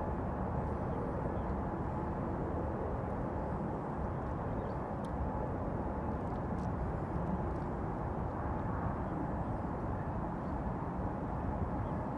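Steady low outdoor rumble with no single sound standing out, keeping an even level throughout.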